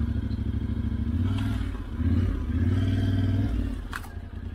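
Yamaha Ténéré 700 parallel-twin engine running at low speed, its revs rising and falling a couple of times under the throttle, with a sharp click about four seconds in.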